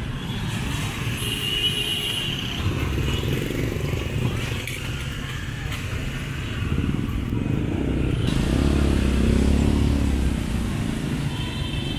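City street traffic noise: motor vehicle and motorbike engines running steadily, growing louder for a couple of seconds late on.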